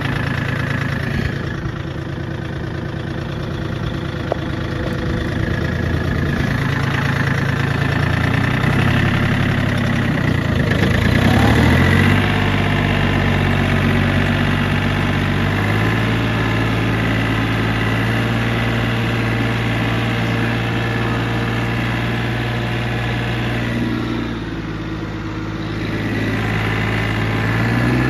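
John Deere compact tractor's diesel engine running steadily, heard from the operator's seat while clearing snow. The engine note wavers and climbs about a third of the way in, then settles to a lower steady pitch, and briefly quietens near the end.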